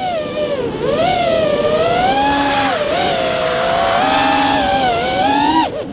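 FPV racing quadcopter's T-Motor F40 II 2600kv brushless motors and three-blade 5-inch props whining in flight, as heard from the onboard camera, the pitch rising and falling with the throttle. The whine cuts off suddenly near the end.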